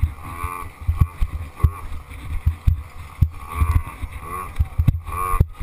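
Small engine of a youth dirt bike revving up and easing off again and again as the throttle is worked over the trail, with frequent short thumps from bumps and wind rumble on the microphone.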